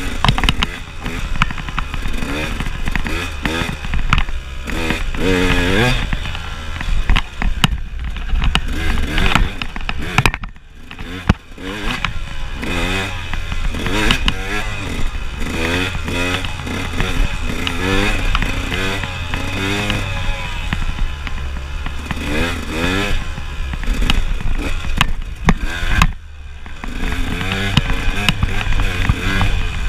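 KTM enduro motorcycle engine revving hard and repeatedly rising in pitch as it accelerates, with wind rumble on the microphone; twice the engine briefly falls away when the throttle is closed.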